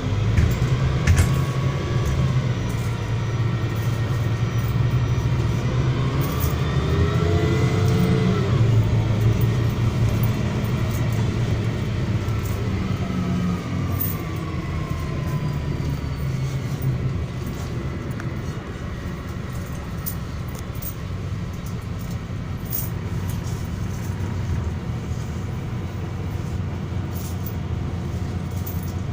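MAZ-103 city bus running, heard from inside the passenger cabin: a steady engine drone with small rattles. A whine climbs in pitch as the bus picks up speed about six to nine seconds in, then falls away.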